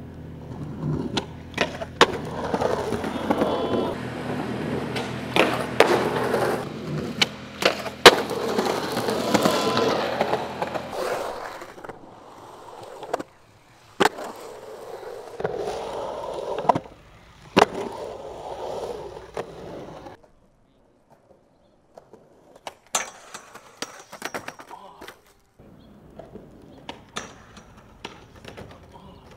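Skateboard wheels rolling on concrete, broken by sharp clacks as the board pops, strikes coping and rails, and lands. The rolling and clacks are loudest in the first two-thirds, then drop to a short near-silent gap and fainter scattered clacks near the end.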